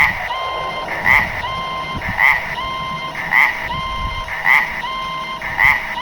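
Level crossing warning alarm ringing in a steady, even rhythm, about one strike a second, over a steady two-note tone.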